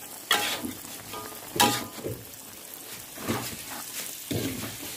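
Green beans and tofu stir-fried in a wok: a steady sizzle under a spatula scraping and tossing the food, with two loud scrapes in the first two seconds and softer ones near the end.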